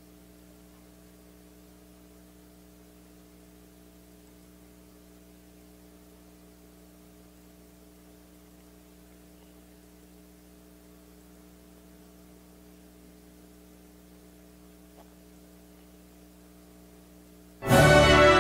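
A faint, steady electrical hum of several low tones held level. Near the end, loud theme music cuts in suddenly.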